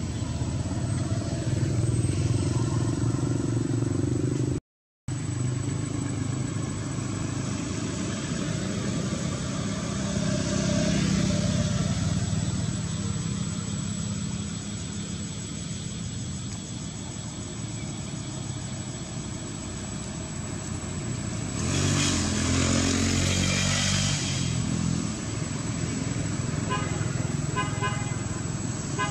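Motor vehicle engines running steadily in passing road traffic, with a louder burst about two-thirds of the way in and a few short repeated ticks near the end.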